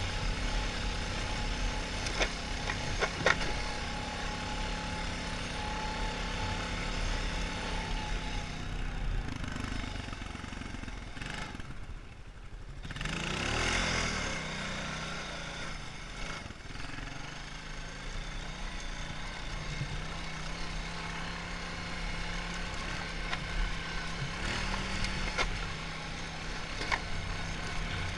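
Honda 450 ATV's single-cylinder four-stroke engine running under way, its pitch changing with the throttle. About twelve seconds in it drops off, then rises and falls again, with a few sharp knocks scattered through.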